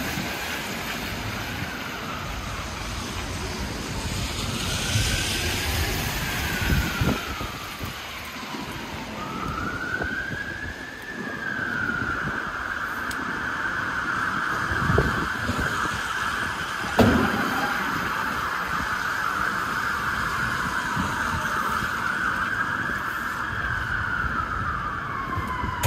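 Emergency vehicle siren wailing in slow rising and falling sweeps, holding one high pitch for several seconds in the middle, over steady street traffic noise. One sharp knock sounds about two-thirds of the way through.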